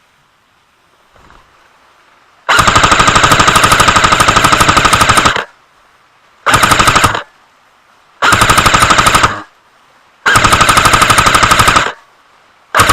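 Airsoft automatic electric gun firing full-auto bursts close to the microphone: a long burst of about three seconds, then two bursts of about a second each and one of about a second and a half, with a short fifth burst starting at the very end.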